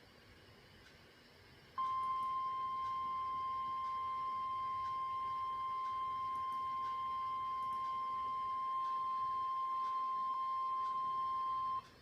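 NOAA Weather Radio 1050 Hz warning alarm tone: a steady, loud single tone that starts about two seconds in after faint radio hiss, holds for about ten seconds and cuts off suddenly. It signals that a warning broadcast follows.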